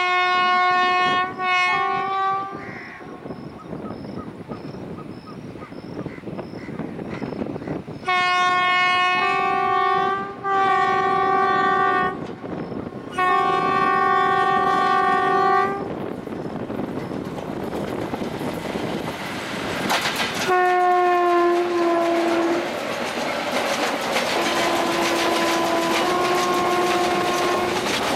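Indian Railways WAG-5 electric locomotive sounding its horn in a string of about eight long blasts, each a second or two, as a container freight train approaches. From about halfway in, the wheel noise of the train passing close builds up and continues under the last horn blasts, with a loud peak about twenty seconds in as the locomotives go by.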